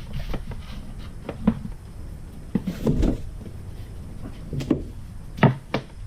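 Handling noises in a small kitchen: about six separate knocks and clunks, spread unevenly over a low background rumble.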